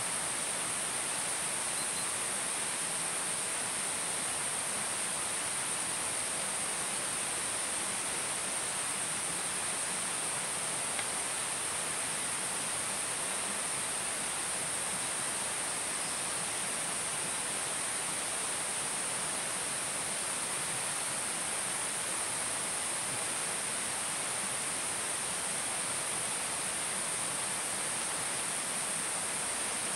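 Steady insect chorus in tropical forest: one constant high-pitched drone over an even hiss, with no distinct calls or knocks.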